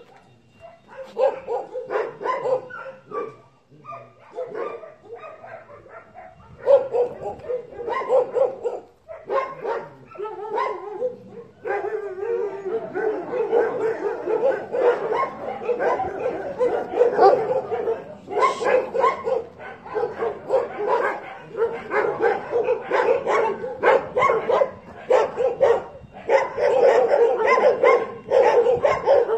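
Several dogs barking, with some yips. The barks are spaced out at first, then become dense and overlapping through the second half.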